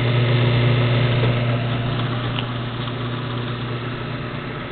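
Steady electric motor hum: a strong, low, even drone with fainter overtones above it, easing slightly in level toward the end.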